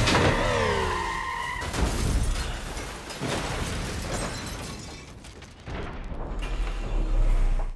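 Car tyres squealing as an SUV skids, followed by heavy impacts with shattering, under a dramatic film score. A low rumble swells near the end and cuts off abruptly.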